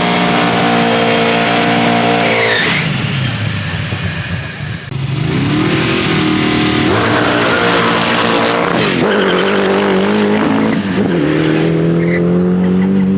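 Drag-racing car engine revving hard. The revs are held high and steady for a couple of seconds, fall away, then climb again in several steps, each rise ending in a drop in pitch.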